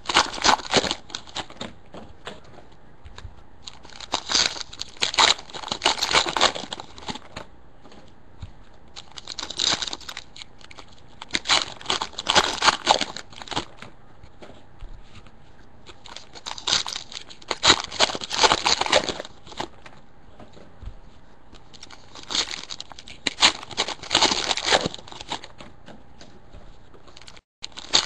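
Foil trading-card pack wrappers (2013 Press Pass NASCAR Racing) being torn open and crinkled, one pack after another. The sound comes in about six separate bouts of crackly rustling with short quiet gaps between.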